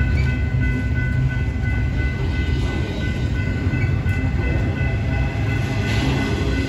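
Double-stack container flatcars of a Norfolk Southern freight train rolling past close by: a steady low rumble of steel wheels on rail, with a thin steady high squeal over it.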